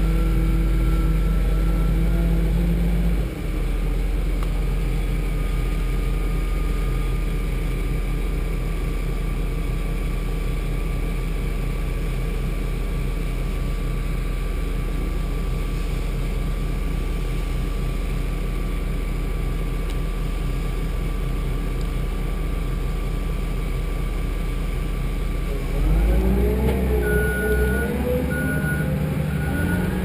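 Bulldozer's diesel engine running steadily. Near the end it revs and a reversing alarm starts beeping at an even pace as the dozer backs up.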